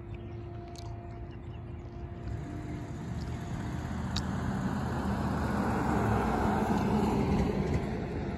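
A road vehicle passing close by: its tyre and engine noise swells over several seconds, is loudest near the end, then drops away.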